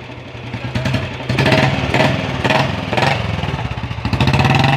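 An old Royal Enfield Bullet's single-cylinder four-stroke engine running with a deep exhaust note. The note swells and eases a few times.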